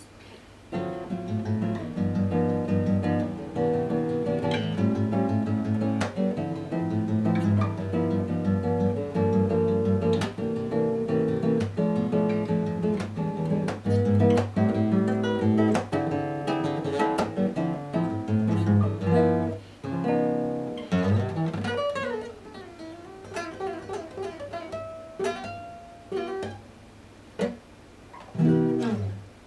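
Acoustic guitar played solo: full chords for most of the time, then sparser, quieter notes with a few sliding pitches in the last third, ending on one loud final chord.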